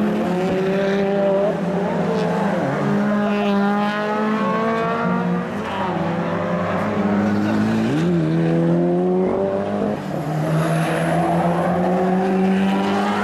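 Honda Civic EG6's four-cylinder B16A VTEC engine at racing revs, its pitch climbing under acceleration and dropping several times as the car shifts and lifts off for corners, with a quick dip and rise about eight seconds in.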